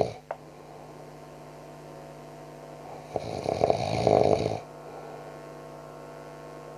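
A man snoring in his sleep: one long snore about three seconds in, the loudest sound here, over a steady electrical hum.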